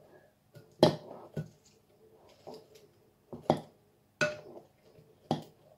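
Metal spoon stirring popcorn in a glass mixing bowl, knocking against the glass about five times at uneven intervals.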